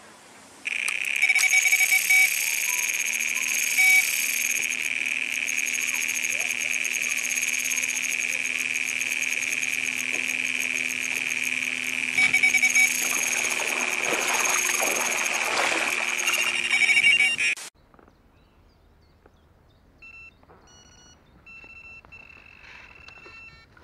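Electronic carp bite alarm sounding one continuous high tone during a run, with a faint lower hum underneath; it cuts off suddenly about 18 seconds in. Near the end, faint short alarm beeps.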